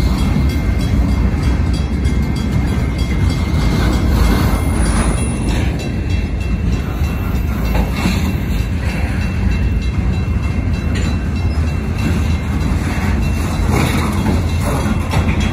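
Slow freight train rolling past: a steady heavy rumble of car wheels on the rails, with scattered clanks every second or two. The grade crossing's two mechanical bells keep ringing while the train occupies the crossing.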